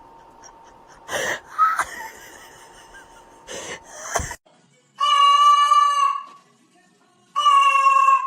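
A cat yowling: two long, loud calls held at one steady pitch, the first about five seconds in and the second near the end, after a few short knocks and rustles.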